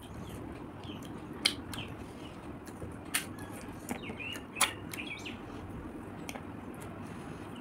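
Eating cooked river snails: a handful of sharp clicks and smacks as shells are picked from the plate, the meat pried out with a toothpick and eaten. A few short high chirps come through around the middle.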